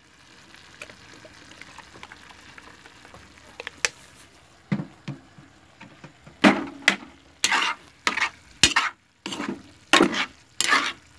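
Vegetables and pork liver frying with a faint sizzle, then, from about five seconds in, a metal spatula stirring and scraping them in the pan in short strokes about one a second.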